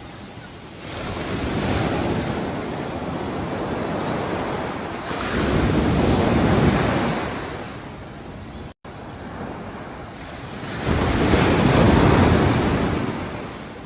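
Ocean waves washing onto the shore, three surges that build and fade about every five seconds. A split-second gap in the sound comes about nine seconds in.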